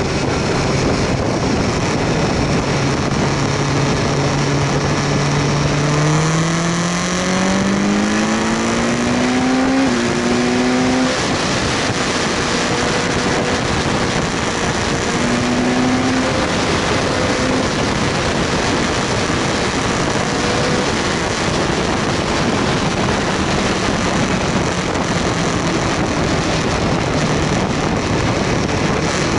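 BMW S1000R inline-four engine running under way with heavy wind rush on the microphone. The engine note holds steady, then rises in pitch for about four seconds as the bike accelerates, steps near ten seconds in, and is then largely covered by the wind.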